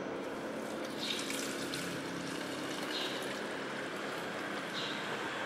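Green liquid car-wash soap poured from a plastic measuring cup into a plastic sprayer bottle: a thin trickle of liquid filling the bottle, over a steady background hum.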